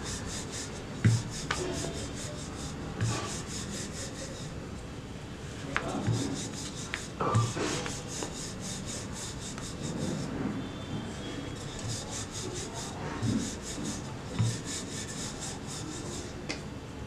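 Wooden rolling pin rolling stuffed paratha dough across a round stone board: repeated rubbing strokes, with a light knock every second or so as the pin meets the board.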